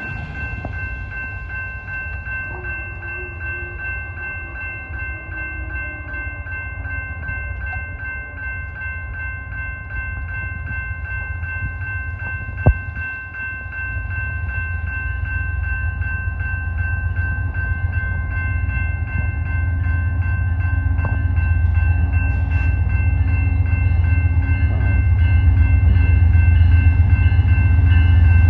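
Electronic railroad crossing bell ringing steadily and rapidly as an Amtrak diesel locomotive approaches. The locomotive's low rumble grows louder toward the end. A single sharp click comes about halfway through.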